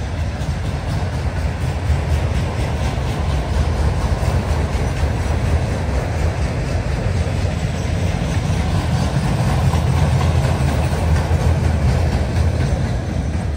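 Freight train cars rolling steadily past, a loud continuous rumble of wheels on rail.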